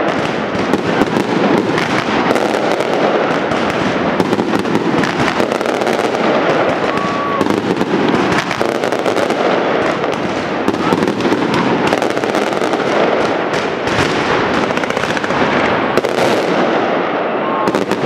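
Dense fireworks barrage: aerial shells and crackling stars bursting overhead in rapid, overlapping bangs and crackles, with no break.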